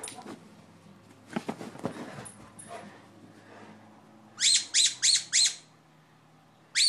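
A dog's rubber squeaky toy squeaked four times in quick succession, about two-thirds of the way in, as it is chomped. Before that come soft rustling and light knocks.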